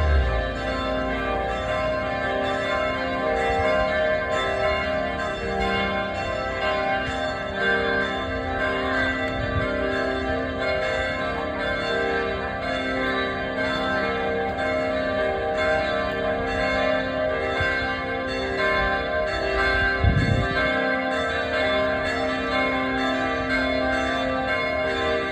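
Church bells ringing continuously, several bells' tones overlapping and sustained, with a brief low rumble about twenty seconds in.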